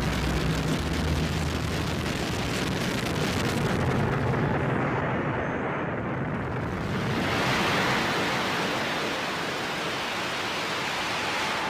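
Harsh noise from a Eurorack modular synthesizer, its cross-modulated filters feeding back through a Big Muff fuzz with stereo delay. A dense wash of distorted noise whose low drone tones fade out in the first couple of seconds; about seven seconds in, a bright, hissy band swells up.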